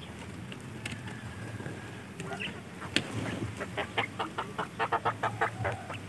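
Quail calling in short clucking chirps that pick up into a quick run of about five a second in the second half, with a sharp click about three seconds in.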